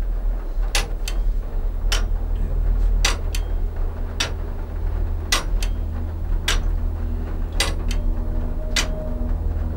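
The 1889 mechanical tower clock movement ticking: a sharp tick a little over once a second, each with a fainter click just after it, over a steady low hum.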